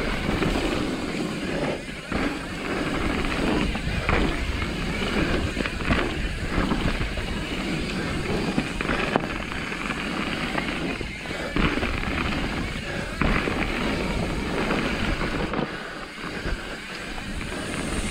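Mountain bike ridden fast down a dirt trail: tyres rolling over the ground with frequent sharp knocks and rattles from the bike, over a steady low rumble of wind on the microphone.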